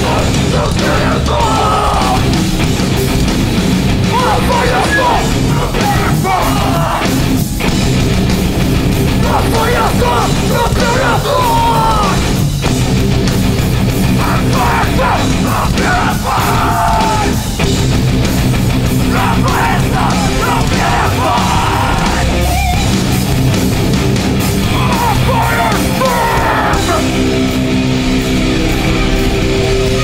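Live metallic hardcore band playing loud, with distorted guitars, bass and drums running without a break and shouted vocals coming in every few seconds.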